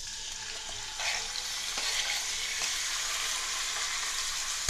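Pieces of raw pork and beef sizzling in hot oil in a frying pan as they are scraped in off a cutting board; the sizzle grows louder about a second in as more meat goes in.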